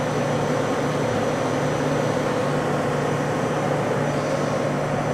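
Steady whirring hum of running machinery and fans, with an even hiss and a faint constant high whine.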